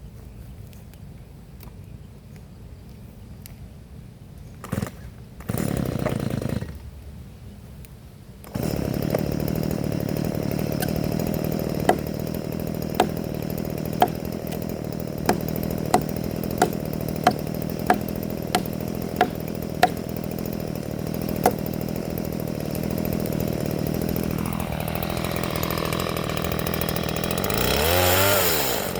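Chainsaw cutting coconut wood. It is low at first, with a short loud stretch about six seconds in, then runs steadily from about nine seconds with a string of sharp clicks, and near the end its pitch swoops down and up.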